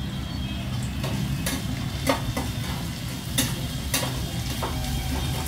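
Steel spatula stirring onions, tomatoes and green chillies frying in a stainless steel kadai, scraping and knocking against the pan in a series of sharp clinks over a steady sizzle.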